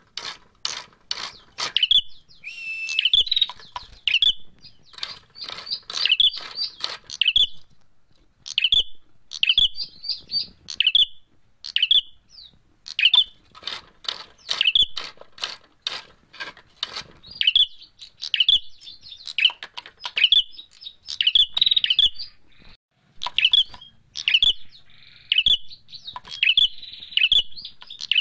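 Caged prenjak merah birds calling: quick runs of sharp, high chirps, repeated over and over with short pauses between runs. This is the agitated calling of the birds squaring up to fight.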